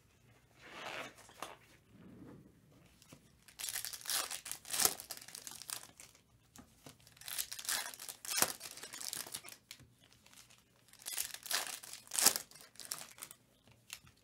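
Foil trading-card pack wrappers being torn open and crinkled by gloved hands, in several bursts of rustling with short quiet gaps between them.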